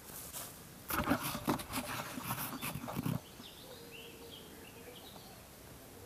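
About two seconds of rustling and bumping, handling noise as the camera is moved and turned, followed by a few faint bird chirps.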